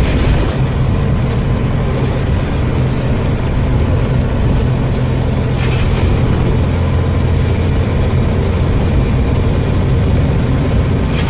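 Scania OmniCity bus's diesel engine running steadily, with a short burst of air hiss, a 'sneeze', about every five and a half seconds, three in all. The uploader puts the sneezing down to worn-out air tanks.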